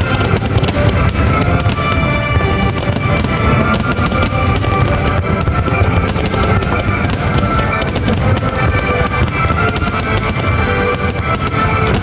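Fireworks display bursting continuously, with dense low booms and frequent sharp crackles, over accompanying music.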